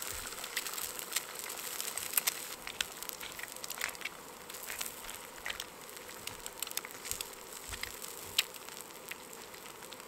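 Egg and wild mushrooms frying in a pan on a gas camping stove: a steady sizzle with irregular sharp crackles and pops of spitting fat.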